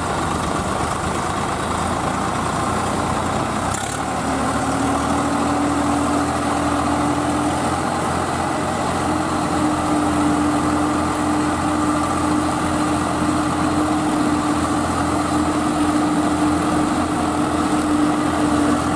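Several diesel tractor engines running together under load as the tractor chain hauls a stuck tractor through deep mud: a steady drone, with a held engine tone that comes in about four seconds in and stays.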